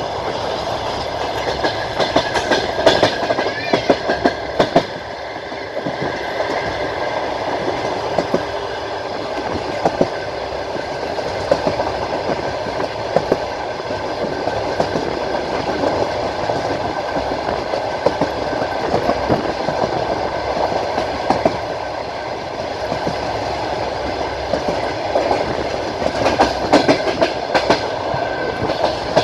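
Wheels of a moving train clattering over the rails, heard from inside the carriage at an open window. A steady rumble runs throughout, with groups of sharp clicks from the rail joints a couple of seconds in and again near the end.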